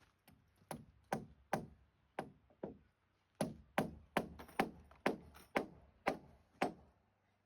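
Hammer blows on timber, about a dozen strikes at roughly two a second, with a short pause near the middle.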